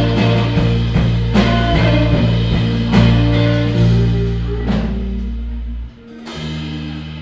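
Live rock band playing the closing bars of a song on electric guitars and drum kit. The drum hits stop a little under five seconds in and the guitars ring on. About six seconds in the sound briefly drops away, then a low steady note swells back.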